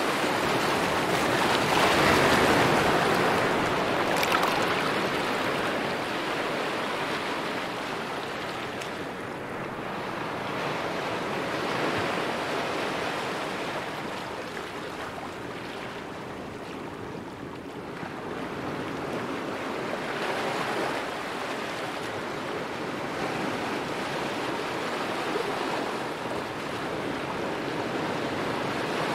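Steady rush of water and wind alongside a moving car ferry, swelling and easing every several seconds.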